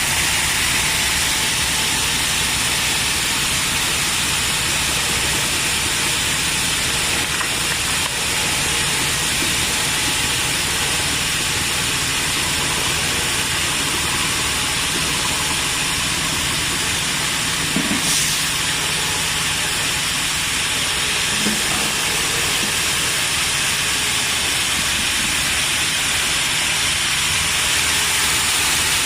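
Rice milling machine running steadily: a constant rushing hiss with a low hum under it, and one brief knock a little past the middle.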